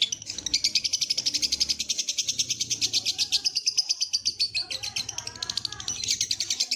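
Lovebird ngekek: one long unbroken run of rapid, high chirps, about ten a second.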